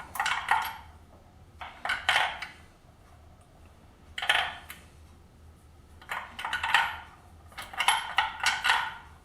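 .223 Remington brass cartridge cases clinking against one another and the bench as they are picked up and set down, in five short bunches of light metallic clinks with pauses between them.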